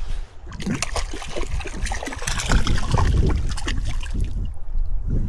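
River water trickling and splashing, with many small clicks, over a steady low rumble.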